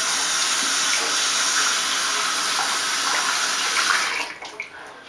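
Water running hard from a tap in a steady rush, shut off about four seconds in.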